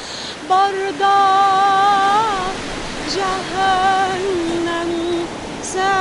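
A woman singing long, ornamented held notes of an Arabic melody, with short pauses between phrases and slides at the ends of notes. A steady rushing noise runs underneath.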